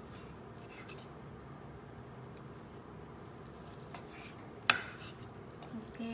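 Knife slicing beef on a cutting board, faint, with one sharp knock of kitchenware about three-quarters of the way through.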